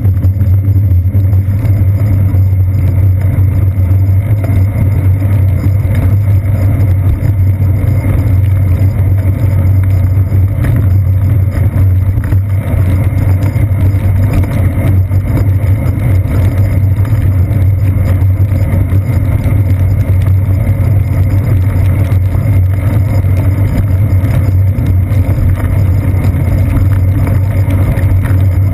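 Steady low rumble of a bicycle riding over wet pavement, picked up by a GoPro Hero 2 mounted on the seat post: road vibration and wind noise on the camera, without a break or change.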